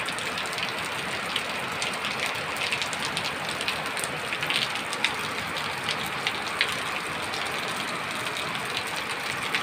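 Heavy rain pouring onto a flat concrete rooftop: a steady hiss dotted with scattered sharp ticks of drops striking close by.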